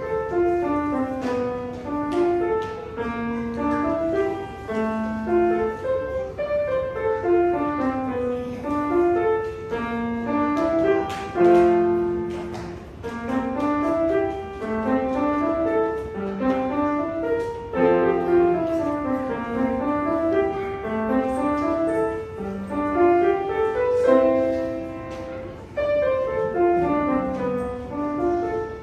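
Grand piano played solo: a steady stream of notes rising and falling in broken-chord patterns, a student's recital piece.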